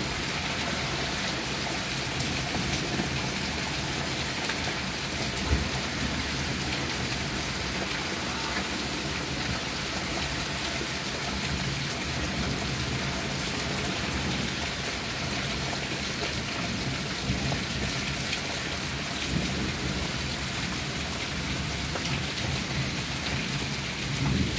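Heavy rain pouring down steadily on pavement, lawns and roofs, with one short thump about five and a half seconds in.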